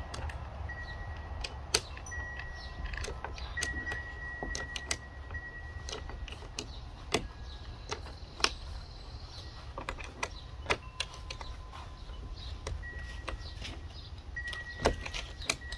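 Scattered sharp metal clicks and ticks as a 4 mm Allen key works the clamp bolt of a roof rail on a Jeep Wrangler, tightening it down. A low, steady rumble runs underneath.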